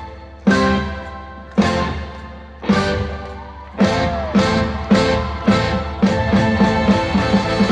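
Instrumental stage music: four loud chord hits a little over a second apart, each fading away, then a steady beat with held notes picks up about four seconds in.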